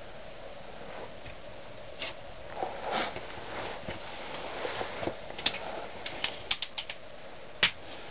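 Scattered scrapes and a quick run of sharp clicks over a steady hiss, the loudest click near the end: close handling and scrambling noises on rock.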